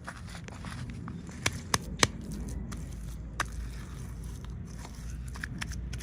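Plastic packaging and small toy parts being handled during an unboxing: scattered crackles and sharp clicks, with a cluster of the loudest clicks about one and a half to two seconds in and another near three and a half seconds, over a low steady hum.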